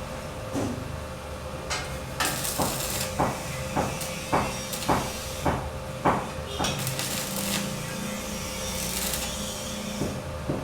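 Hammer blows, a regular run of about ten strikes at roughly two a second in the middle, over a steady hiss and a faint hum.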